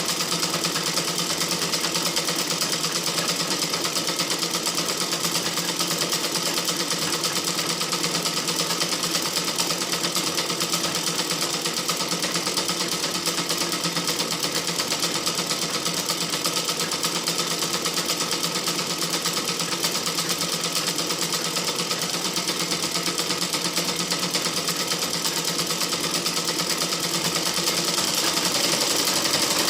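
Sewing machine running steadily at a constant speed, a continuous even mechanical whirr.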